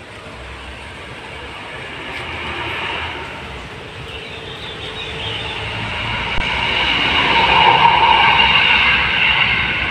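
A passing vehicle's steady rumbling noise, growing louder over several seconds to a peak about eight seconds in, then easing slightly.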